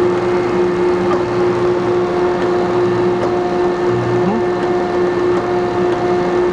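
A 1981 Landis 1R cylindrical grinder running, its hydraulic pump and spindle drive giving a steady hum at one constant pitch. A few faint clicks come from the table and feed levers being worked.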